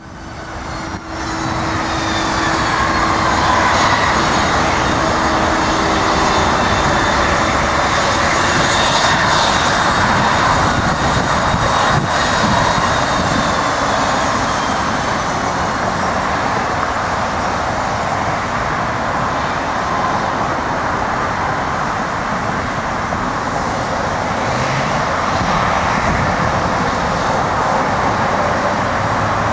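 Boeing 717's Rolls-Royce BR715 turbofans running at taxi power: a steady jet rush with a high whine that slowly falls in pitch, fading in over the first couple of seconds.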